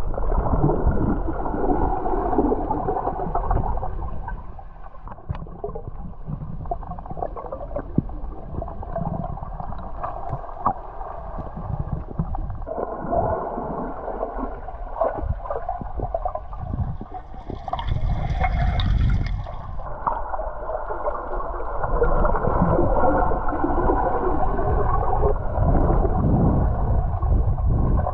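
Muffled underwater water noise: a steady gurgling and rushing with occasional knocks, heard from underwater. A brief, brighter hiss about two-thirds of the way through.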